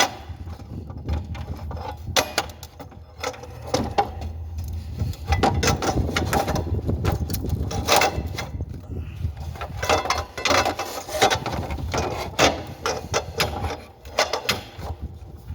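Irregular metal knocks and clanks of a pry bar levering a car alternator out of its mounting.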